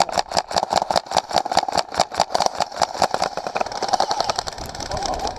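Airsoft guns firing on full auto: a fast, continuous rattle of sharp shots, about eight to ten a second, with a steady whine underneath, easing off near the end.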